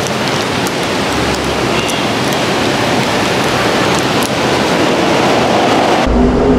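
A steady, even rushing hiss with a few faint ticks. At about six seconds it changes abruptly to a duller sound with a low hum.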